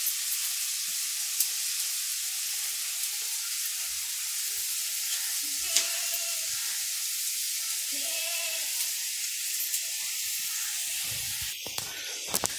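A steady high hiss with a few faint short sounds in it. The hiss drops away about eleven and a half seconds in, followed by a few clicks.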